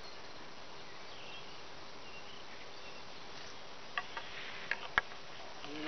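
Woodland outdoor ambience: a steady hiss with a faint steady hum and a few faint high chirps. Then three or four sharp clicks about four to five seconds in.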